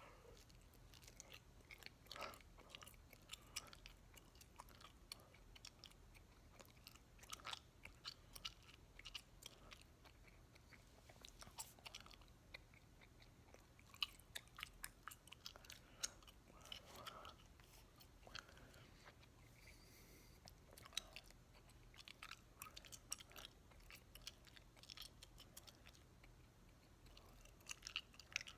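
Faint, wet chewing of a large wad of bubble gum (three pieces) close to the mouth: irregular smacks and sticky clicks.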